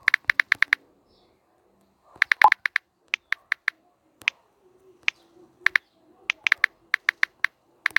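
Keyboard typing: quick runs of short, sharp, identical clicks with brief pauses between the runs, as a text message is typed out.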